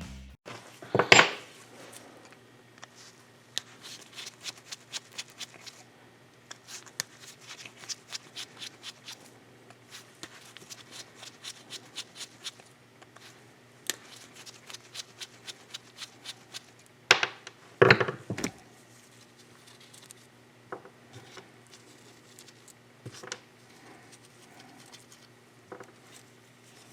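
Light metallic clicks, taps and scrapes of a screwdriver and small parts being handled while a seized oil pump is taken apart, including a long run of quick ticks and a couple of louder knocks about a second in and near the two-thirds mark, over a steady faint hum.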